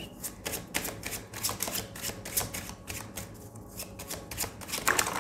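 A tarot deck being shuffled by hand: a rapid, uneven run of card clicks and flicks.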